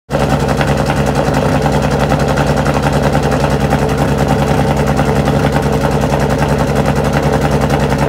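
Lancia Delta HF Integrale 16v Group A rally car's turbocharged 2.0-litre four-cylinder engine running at a steady idle, loud, with an even, rapid pulsing beat and no revving.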